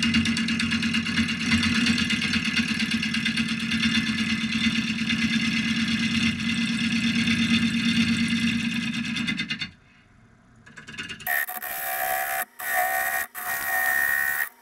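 Wood lathe running with a zebrawood platter blank spinning on it: a steady motor hum with a whine on top. The sound drops away just under ten seconds in. About a second later a different, higher whine starts, broken twice by brief gaps.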